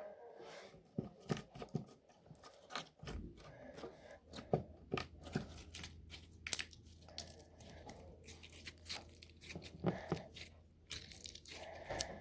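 Slime being stretched and squeezed by hand, giving a run of irregular sticky crackles, pops and tearing sounds.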